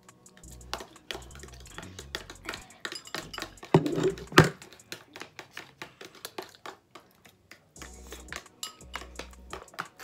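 Utensils clicking and clinking against bowls and cups while eating, over background music with a steady beat. About four seconds in there is a short loud burst followed by a sharp knock.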